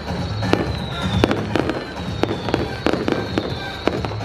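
Fireworks display: sharp bangs and crackles going off about twice a second, with music playing underneath.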